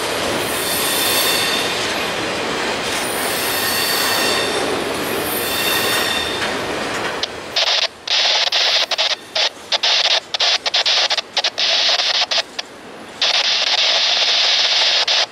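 Intermodal freight cars rolling past at close range, wheels on rail with thin high squeal tones over the rolling noise. About halfway through a loud, harsh hissing squeal cuts in and out repeatedly to the end.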